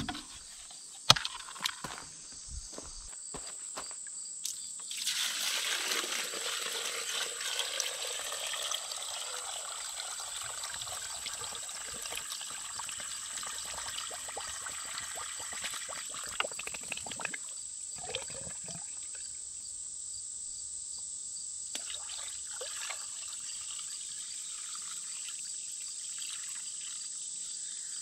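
Water poured from a bucket into a pool pump's strainer housing, filling the pump with water before it is first switched on. The pour is loudest for a few seconds starting about five seconds in, then goes on as a softer trickle, with a steady high insect chirping behind it.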